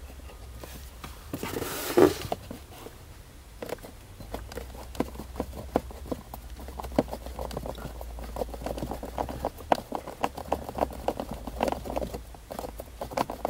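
Phillips screwdriver turning out the screw that holds a blower motor resistor: a long run of small irregular clicks and scrapes, with a brief rustle about two seconds in.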